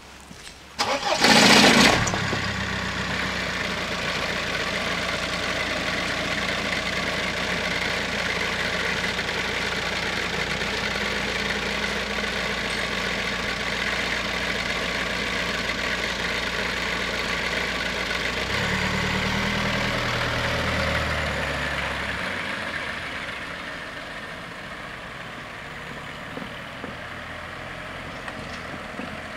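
Siemens Desiro diesel railcar: a short, loud air hiss about a second in, then its diesel engine running steadily. The engine note strengthens for a few seconds about two-thirds of the way through, as for a departure, then fades away.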